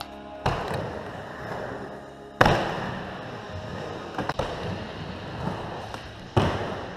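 Skateboard riding a bowl: a steady rumble of wheels rolling on the bowl's surface, broken by sharp clacks of the board and trucks, one about half a second in, the loudest about two and a half seconds in, a couple of lighter knocks around four seconds, and another strong one near the end.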